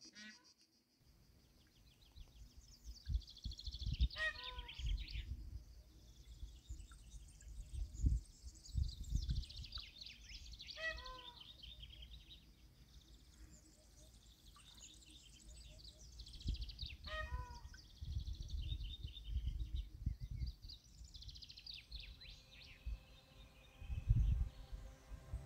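Birds singing outdoors: high twittering chirps throughout, and a short stepped, descending run of notes that comes three times, about every six to seven seconds. A low rumble comes and goes underneath.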